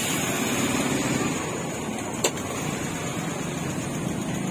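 Street traffic: vehicle engines running steadily, with a single sharp click about two seconds in.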